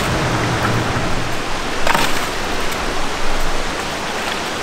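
Wet sand, gravel and muddy water pouring from a plastic bucket into a steel wok, a steady wash of splashing with a few sharper splashes and knocks.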